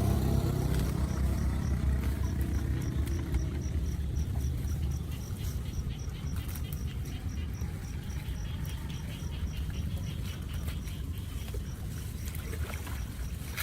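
A steady low rumble, loudest at the start and easing off over the first few seconds, with an insect chirping at an even pace of about two to three short chirps a second.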